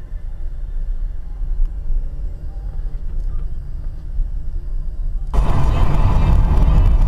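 Low, steady vehicle rumble. About five seconds in, louder and fuller road and engine noise cuts in suddenly.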